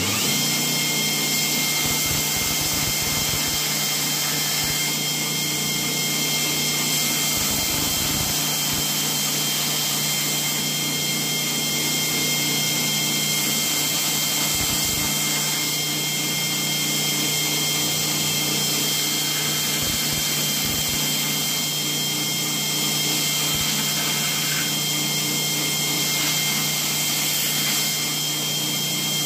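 Belt grinder running steadily while a wooden knife handle is pressed against and shaped on its abrasive belt, a motor hum under a steady high whine and sanding hiss.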